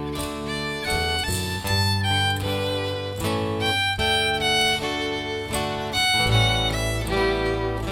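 A live band playing an instrumental passage: a fiddle carries a stepping melody over guitar and a steady bass line.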